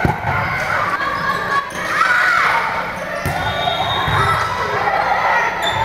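A volleyball is struck a few times during a rally in a gym, sharp hits heard over players and spectators shouting and chattering.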